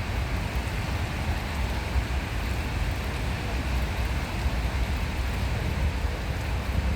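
Steady outdoor background noise: a fluctuating low rumble under an even rushing hiss, with no distinct events.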